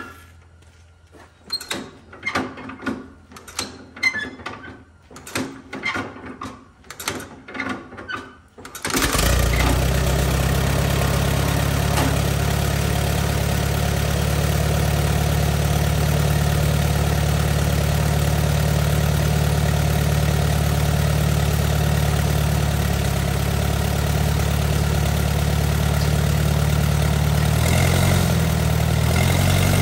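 1944 Allis-Chalmers B four-cylinder engine being restarted: a run of short bursts about two thirds of a second apart as it is cranked, then about nine seconds in it catches and settles into a steady idle, firing on its newly rebuilt and timed magneto. Its note shifts briefly near the end.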